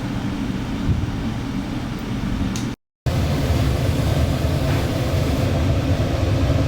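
Steady low mechanical hum and rumble of kitchen machinery such as rotisserie spits and exhaust fans, cut off by a brief dead silence about three seconds in, then back and a little louder.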